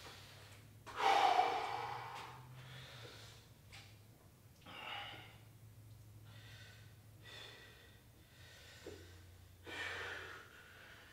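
A man breathing hard from the exertion of a weight set: a sharp, loud exhale about a second in, then more heavy breaths every two seconds or so. A low steady hum runs underneath.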